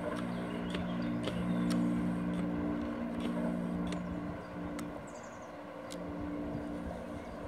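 A steady low motor drone with a few sharp clicks.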